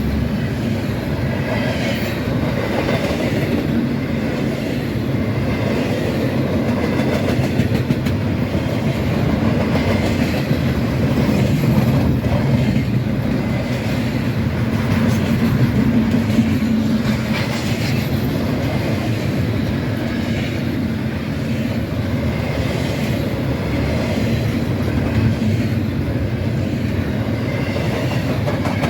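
Train cars rolling past, a steady loud rumble of steel wheels on the rails with occasional clacks.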